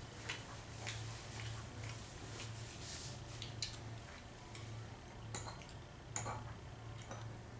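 Light clicks and scrapes of a knife and fork against a plate and bowl while eating, scattered and irregular, over a low hum that swells and fades about once a second.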